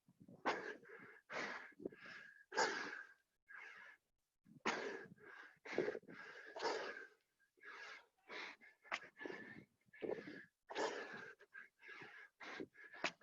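Heavy, rapid breathing from someone out of breath doing burpees: hard breaths in and out, a bit more than one a second, with a wheezy whistle in them.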